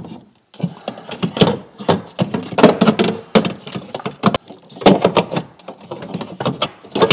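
Irregular metallic knocks, clanks and rattles, several a second, as the window regulator of a Land Rover Freelander rear door is worked and wrestled inside the door's sheet-metal cavity; it is stuck with old gunk.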